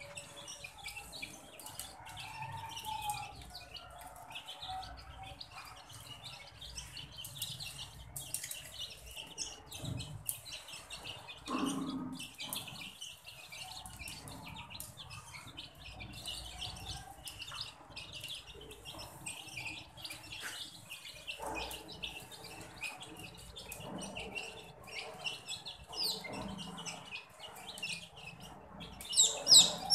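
A flock of young chicks peeping continually as they feed, many short high peeps overlapping, louder near the end.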